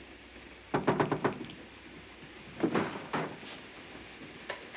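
Railway compartment door being opened: a quick burst of clicks and rattling about a second in, then a heavier knock a couple of seconds later and a single click near the end.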